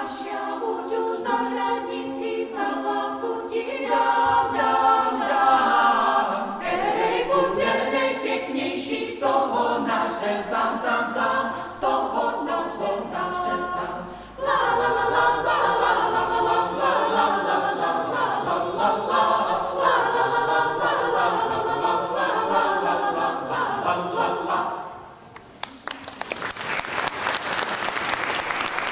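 Choir singing unaccompanied; the song ends about 25 seconds in and the audience breaks into applause.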